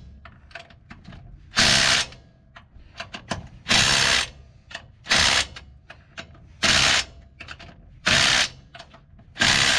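A power tool run in short bursts of about half a second, six times, with light clicking in between.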